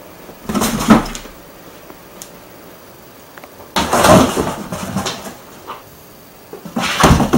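A cat jumping into and scrambling about in large cardboard boxes: three bursts of thumps and scraping cardboard, about three seconds apart.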